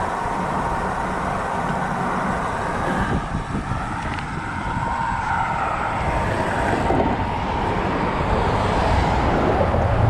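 Motor traffic passing on the road while riding a bicycle, with wind rush on the microphone. It grows a little louder in the second half.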